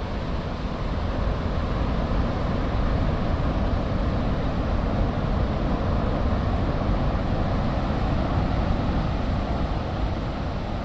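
Steady rushing noise, heaviest in the low end, swelling slightly about a second in.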